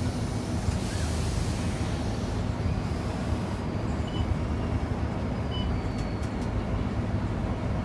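Scania K230UB single-decker bus's rear-mounted diesel engine running steadily, heard from inside the passenger cabin as a constant low hum with no revving.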